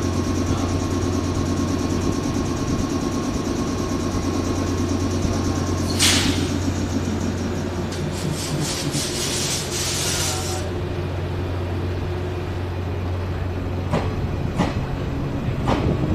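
A yellow JR West 115 series electric train humming steadily at the platform, with a sharp burst of compressed air hissing about six seconds in and a longer hiss a couple of seconds later. Near the end the hum fades and wheels start clicking over rail joints as a train moves along the platform.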